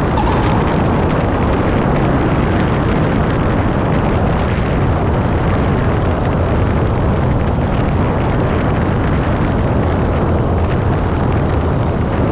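Cessna 182T rolling along the runway with its six-cylinder Lycoming IO-540 at idle, heard as a loud, steady rush of engine, propeller and air noise from a camera under the wing.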